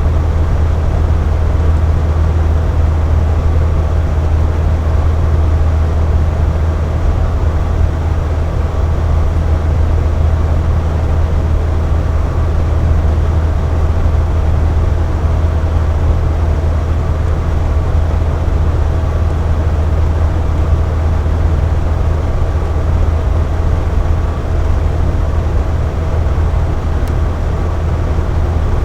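Electric box fan running steadily: a constant low whoosh of air with a faint motor hum under it.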